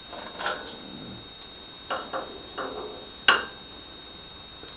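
Several sharp metal knocks as the bandsaw's clamp jaw is knocked into alignment, with one much louder strike about three seconds in.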